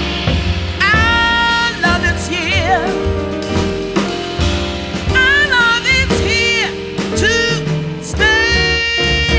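Jazz band music with a singer holding long notes with vibrato over bass and drums.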